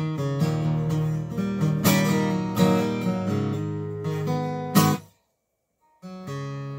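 Acoustic guitar being picked and strummed in an improvised riff, with sharp plucked attacks. About five seconds in the sound cuts off dead for about a second, then the guitar resumes.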